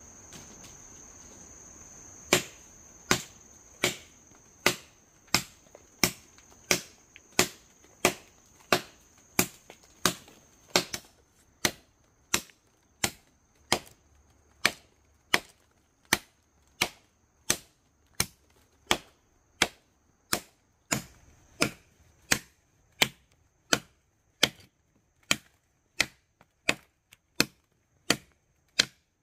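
Machete chopping into a fallen log, sharp strokes about one and a half a second beginning about two seconds in. A steady high-pitched insect drone runs underneath, fainter in the second half.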